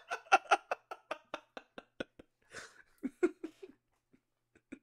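Two men laughing hard: a quick run of short 'ha-ha' pulses for about two seconds that tails off into a few fainter laughs and breaths, then a brief lull near the end.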